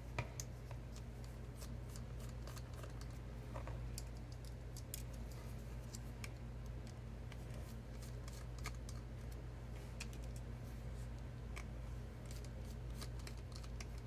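Faint scattered clicks and scratches of hands handling a disassembled tablet's plastic frame and circuit board and a precision screwdriver turning out a small screw, over a steady low hum.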